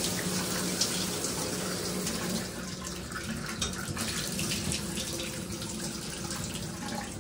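Water running from a bathtub-shower's tap and splashing steadily into the tub, with a steady low hum underneath.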